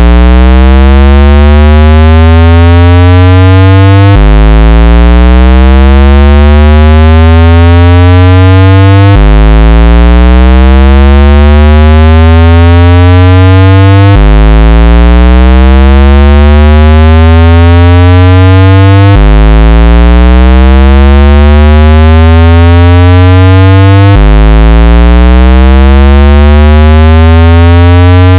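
Synthesized speaker-cleaning tone: a loud, low tone with many overtones that glide up in pitch over about five seconds, then snap back and start again, repeating. It is played through a phone or laptop speaker to vibrate the driver and shake out dust or water.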